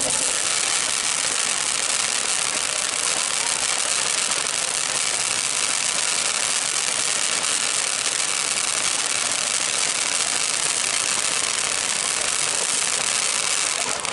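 Ground fountain firework spraying sparks: a steady loud hiss with dense fine crackling.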